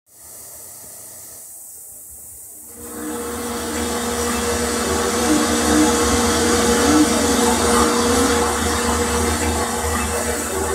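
Opening of a karaoke song's backing music played through room speakers: held low notes and short repeated notes under a loud, steady hiss that swells in about three seconds in.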